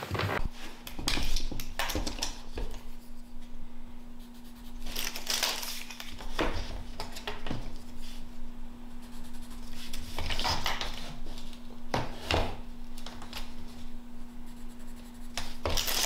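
Small handling sounds of a tape measure and pencil on pine floorboards: scattered clicks, taps and scrapes as the tape is laid out and marks are made, over a steady low hum.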